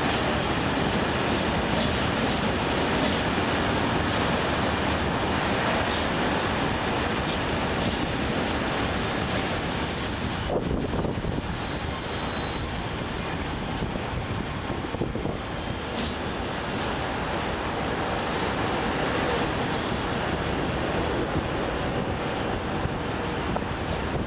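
Empty log-carrying bogie wagons of a freight train rolling past over points: a steady rumble of wheels on rail, with high-pitched wheel squeal coming in for several seconds around the middle.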